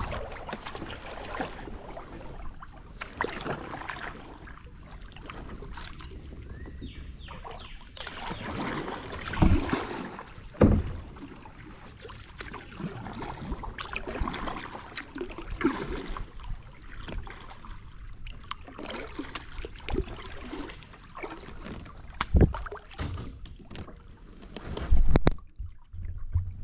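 Kayak being paddled: paddle strokes splashing and dripping in river water, with a few low thumps now and then.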